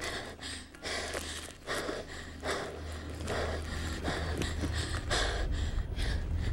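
A woman breathing hard in quick, heavy gasps, about one or two a second, out of breath and shaken after taking an electric shock.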